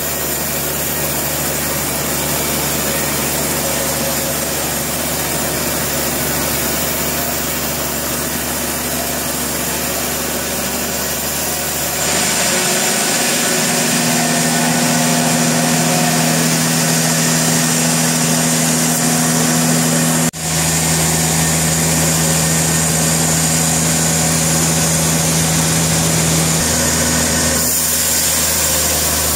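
Portable sawmill's engine running steadily. About twelve seconds in it gets louder and its tone changes, and about twenty seconds in it breaks off for an instant.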